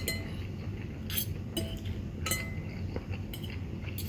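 Metal spoon and fork clinking and scraping against a porcelain bowl: five or six separate clinks, each with a brief ring, over a faint low hum.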